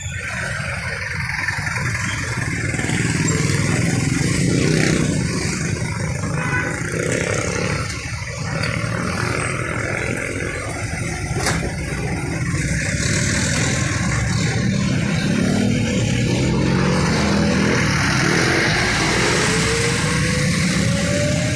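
Vehicle engine and road noise, steady and loud, with an engine note rising in pitch over the last few seconds as it speeds up.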